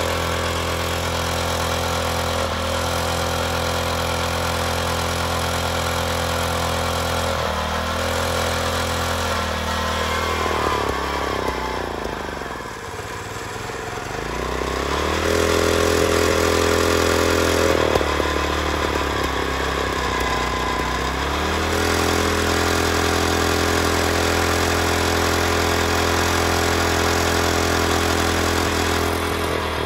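Core drill with a water-cooled diamond core barrel boring into asphalt to cut a test core, its motor running steadily. About halfway through it bogs down sharply under the load and recovers, then slows briefly again a few seconds later.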